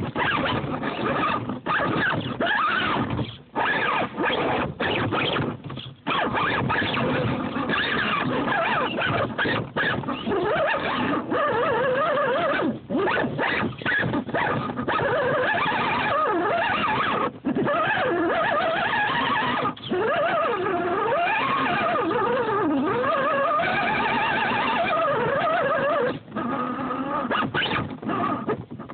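Axial Wraith RC crawler's electric motor and gear drivetrain whining, the pitch rising and falling with the throttle, over a dense steady noise that drops out briefly many times.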